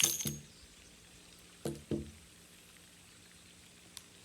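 Knocks and metallic clicks from a Colt Official Police revolver as spent cases stuck in its cylinder are forced out. A cluster of sharp knocks comes at the start, two more a little under two seconds in, and a faint tick near the end.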